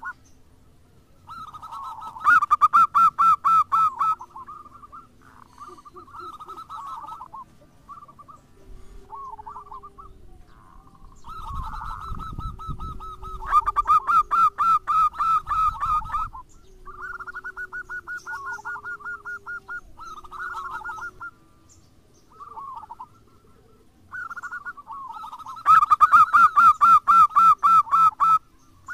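Zebra dove (perkutut) singing in phrases of rapid staccato coos, each phrase a quick run of pulsed notes. Three phrases are loud: one about two seconds in, one in the middle and one near the end, with softer phrases between them.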